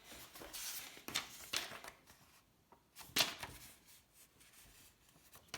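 Packaging rustling and crinkling as box contents are handled, with the loudest crinkle about three seconds in.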